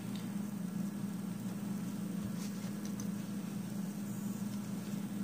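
A steady low hum, like a small motor or appliance running, with a few faint light clicks about halfway through.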